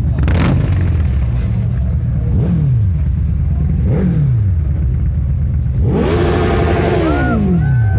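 Motorcycle engines rumbling steadily. Bikes pass close by twice, their pitch rising then dropping. A louder pass comes near the end, with a strong exhaust note that falls in pitch as it goes by.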